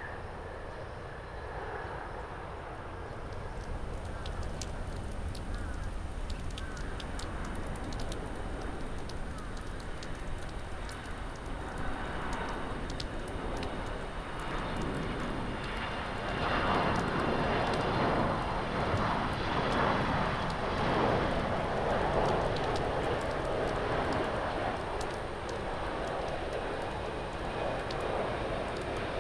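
Jet engines of an ANA Boeing 777-200ER airliner on final approach to landing, over a steady low rumble. The engine noise swells about halfway through as the plane comes closest, holds for several seconds, then eases as it flies on over the runway.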